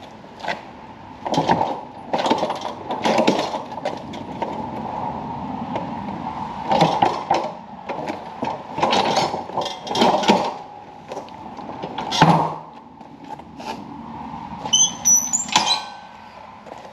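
Clunks, knocks and thumps from a Country Clipper zero-turn mower's steel frame and deck as it is kicked loose and rocked down off its rear end onto its wheels. There is a heavy thump about twelve seconds in, and a brief high squeak near the end.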